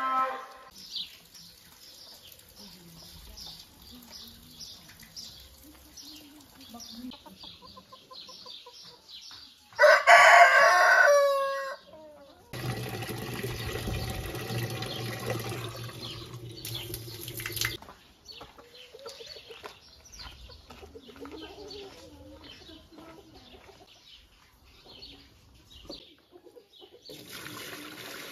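A rooster crows once, loudly, about ten seconds in, amid quieter scattered farmyard sounds. Right after it comes a few seconds of steady noise with a low hum.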